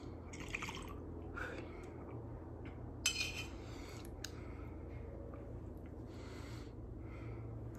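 A glass hand pipe and a torch lighter being handled and set down, with a few light knocks and clicks and some breaths, over a steady low hum.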